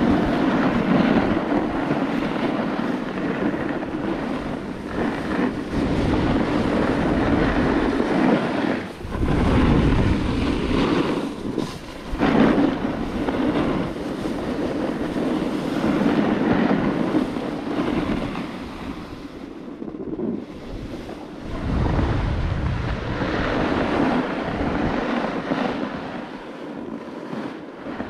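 Wind rushing over a snowboarder's action-camera microphone, mixed with the board hissing over packed snow. It swells and dips every few seconds with the rider's speed.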